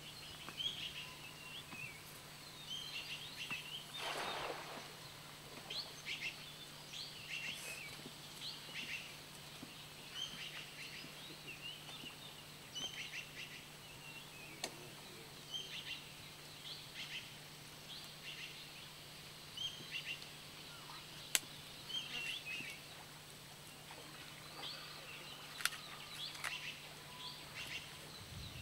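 Birds chirping, short high calls every second or two, over a faint steady low hum.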